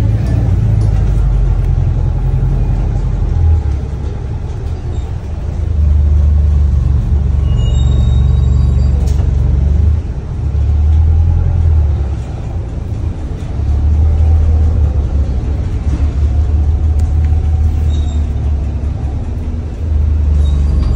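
Double-decker bus on the move, heard from inside the upper deck: a steady low engine and road rumble that swells and dips several times, with a few faint brief squeaks and rattles about halfway through.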